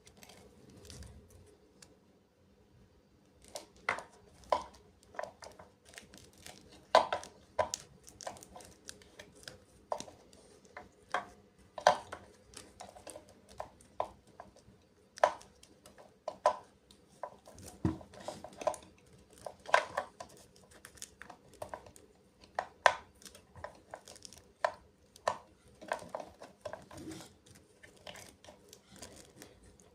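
Toy packaging being handled and opened: plastic and cardboard crinkling and tearing, with many irregular short clicks and taps starting a few seconds in.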